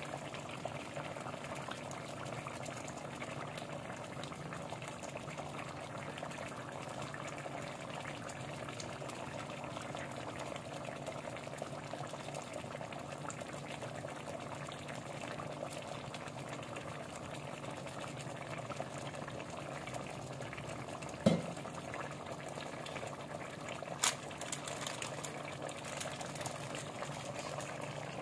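Fish curry simmering in an aluminium pot: a steady bubbling with small crackles. A dull knock comes about three quarters of the way through, and a sharp click follows a few seconds later.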